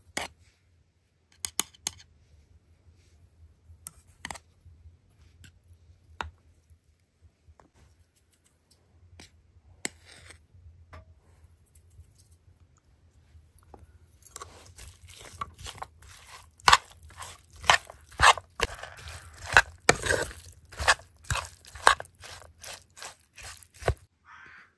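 A metal spoon clicking now and then against a metal pan and small metal spice bowls, then from about halfway in a quick run of clanks and scrapes as the spoon stirs raw lamb, onion and kiwi slices in the pan.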